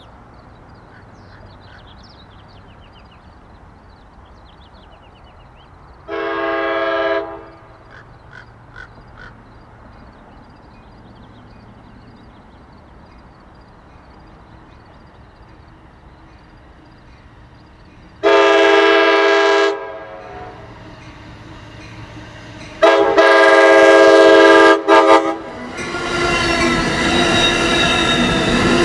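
Train horn sounding three blasts: a short one about six seconds in, then two longer ones, the last one cut by a brief break. From about 26 seconds the train itself grows loud as it draws near, with the horn tone carrying on under the noise.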